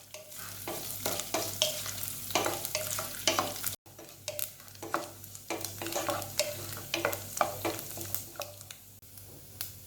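Thin coconut slices frying in hot oil in a pan, crackling and sizzling irregularly as a spatula stirs them. The sound cuts out for an instant about four seconds in.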